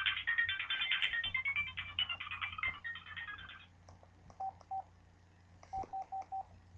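A mobile phone ringtone playing a fast electronic melody of quick beeping notes, which stops about three and a half seconds in. Then come a few short beeps at one lower pitch, two and then four.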